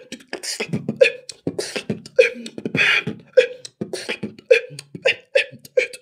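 Mouth beatboxing: a steady beat of quick clicks and short drum-like hits, with repeated cough snares, each a brief pitched head-voice cough joined to a breathy whisper hiss.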